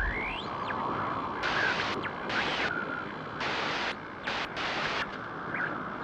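Sound effect of a GoPro logo intro: a steady hiss with a whistle gliding up in the first second and several bursts of brighter hiss switching abruptly on and off.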